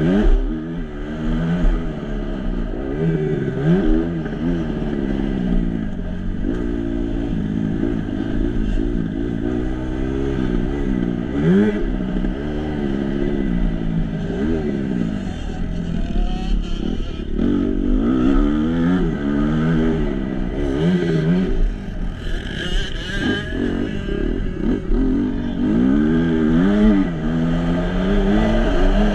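Kawasaki KX250F four-stroke single-cylinder motocross bike engine, heard from on board, revving up and dropping back again and again as the rider works the throttle through the gears around the track.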